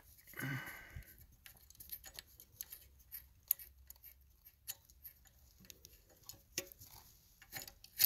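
Light, irregular clicks and scrapes of a plastic conduit-fitting ring being turned by hand onto the metal housing of a well pump pressure switch, with a brief rustle under a second in.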